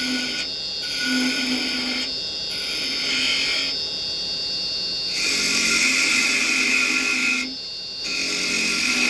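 Carbide chisel cutting a small wooden spindle on a running wood lathe, in about five passes of one to two seconds each with short breaks between them. A steady machine whine from the lathe runs underneath.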